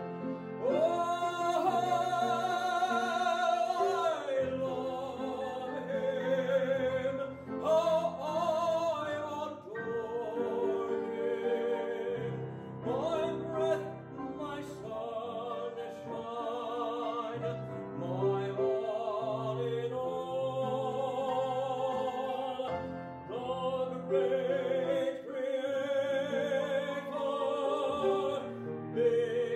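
A man singing a solo in a trained, operatic style, holding long notes with a wide vibrato, accompanied by a grand piano.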